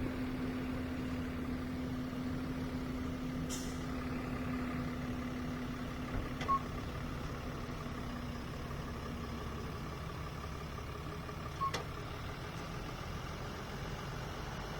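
Truck engine idling steadily. There is a brief hiss about three and a half seconds in, and two short high blips, one about six and a half seconds in and one near the end.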